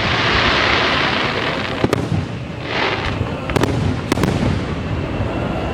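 Aerial fireworks display: a dense hiss over the first second and again about three seconds in, with sharp bangs of shells bursting about two, three and a half and four seconds in.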